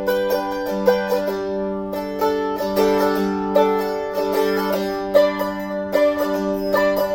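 Handmade Les Paul–style mandolin of mango and teak being played: quick picked melody notes over a steadily ringing lower note.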